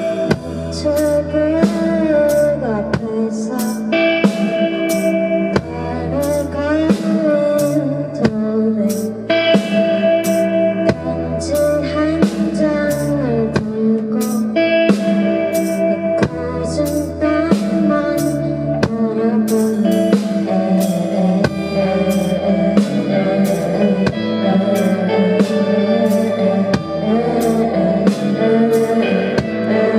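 Live band playing a song, with drum kit, bass and guitar under a singing voice, at a steady beat.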